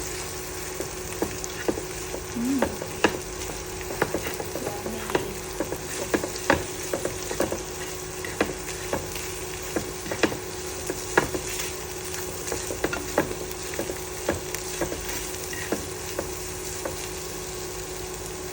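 Beaten egg frying with chicken and garlic in hot oil in a pan: a steady sizzle, with a spatula clicking and scraping against the pan at irregular intervals as it is stirred.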